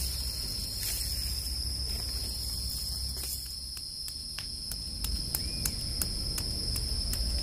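Steady, high-pitched insect drone, with a run of sharp clicks in the second half.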